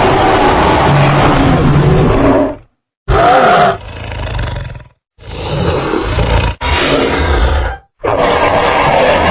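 Spinosaurus creature sound effects: a run of separate roars and growls, each cut off abruptly by a short silence. A long roar, then a shorter one that fades out, then three more in quick succession.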